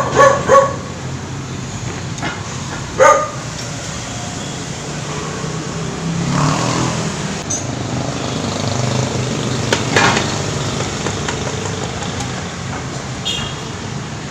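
Steady low rumble of passing vehicles that swells around six to seven seconds in and again around ten. A dog barks at the start and once more, loudly and briefly, about three seconds in.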